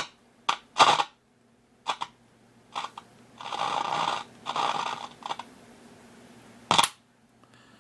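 Sharp clicks and knocks from handling parts on a workbench, with two hissy bursts of about a second each in the middle, over a faint steady low hum.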